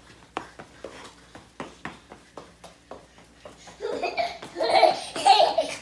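Scattered light taps, then from about four seconds in loud laughter in several bursts.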